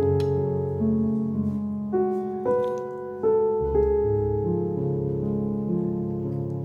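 Background piano music: a calm melody of single struck notes, each left to ring on over low sustained chords.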